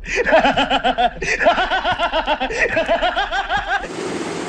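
A person laughing hard, a rapid run of short 'ha-ha' bursts with a quick catch of breath about a second in. The laughter stops abruptly near the end, leaving a steady hiss.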